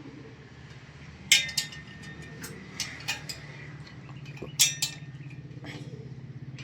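Sharp metallic clinks of metal tools or parts knocking together, five or so strikes, the loudest about four and a half seconds in. Beneath them runs a steady low pulsing rumble like an engine running.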